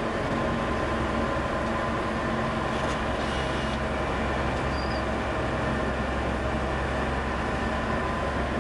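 Tour bus engine and road noise heard from inside the cabin: a steady drone with a few held tones.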